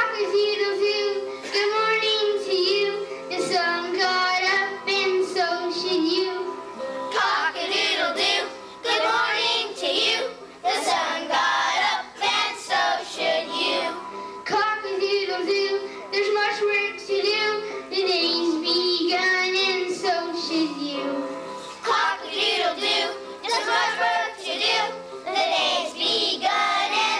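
A child singing a solo song into a microphone, with musical accompaniment.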